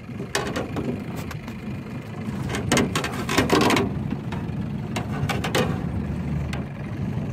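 Knocks and rattles of a landing net's metal hoop against the boat's side as a small northern pike is hauled aboard and set down, with a dense cluster of clatter mid-way. Under it, the low steady hum of an idling outboard motor.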